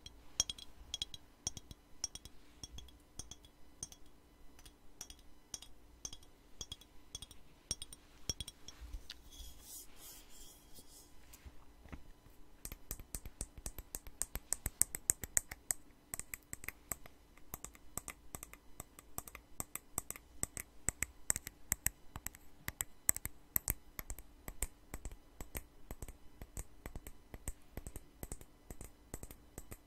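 Fingers tapping quickly on a glass perfume bottle and its cap, close to the microphone: a steady run of about four to five light taps a second, a short stretch of softer handling about nine to twelve seconds in, then faster, denser and louder tapping.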